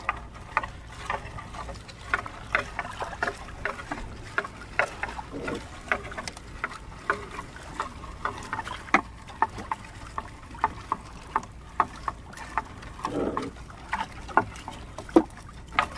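A gill net being hauled by hand over the side of a wooden boat: irregular sharp clicks and knocks as the net's weights and floats tap the hull, over a steady low rumble.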